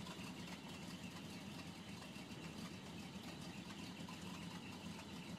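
Ford 360 cubic-inch FE V8 idling steadily, exhausting through long-tube headers and true dual exhaust with Cherry Bomb glasspack mufflers.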